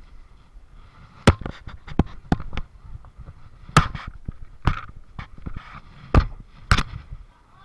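A series of sharp, irregular pops and bangs, about a dozen over several seconds, the loudest around one, four and six to seven seconds in.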